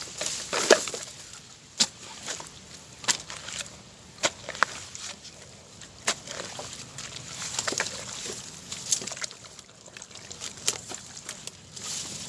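Hands working in wet mud and shallow water at a mud-crab burrow: irregular sloshing and squelching, with sharp clicks scattered throughout.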